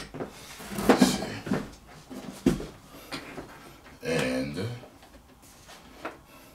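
Action figure packaging being handled: rustling and a few sharp clicks of cardboard and plastic, with a brief wordless vocal sound around four seconds in.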